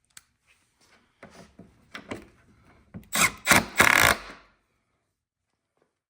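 Work on a snowmobile's plastic hood while the headlight is fastened back in: light clicks and knocks, then a loud rasping scrape lasting about a second and a half, starting about three seconds in.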